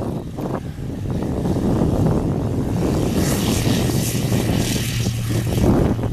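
Dyn'Aéro MCR01 light aircraft's propeller engine running as it rolls along a grass strip for takeoff. The steady engine note grows stronger about halfway through.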